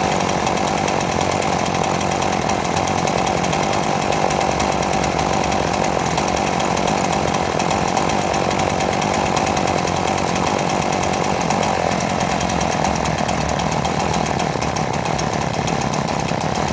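Homelite two-stroke chainsaw engine running steadily, poorly by its owner's account. The owner takes it to be so smoky that it chokes itself on its own smoke.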